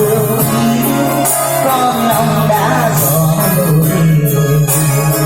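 Loud music with a steady beat and sustained bass and instrumental tones, with some singing.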